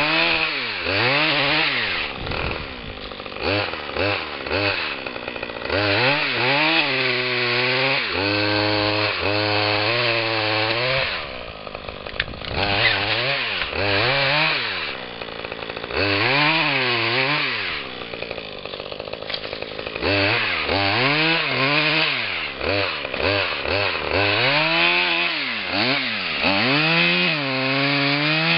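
Husqvarna 535 FBx backpack chainsaw, a small two-stroke engine, revving up and falling back many times in a row as it cuts through small beech stems. There are short stretches near idle between bursts, about a few seconds in, near the middle and about two-thirds of the way through.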